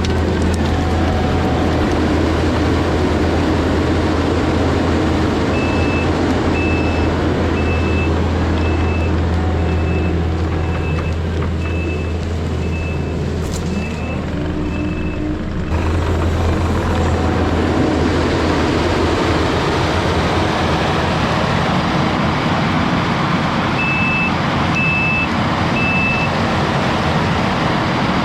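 Diesel heavy equipment running steadily with a deep engine drone, its backup alarm beeping about once a second for several seconds from around six seconds in, then again near the end.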